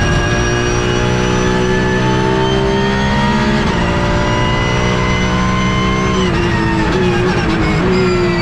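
Porsche 992 GT3 Cup's 4.0-litre flat-six, heard from inside the cockpit, pulling hard with the revs climbing in fourth and an upshift to fifth about three and a half seconds in. About six seconds in the revs drop sharply on lifting off, with two quick downshifts toward third, each with a short blip of revs.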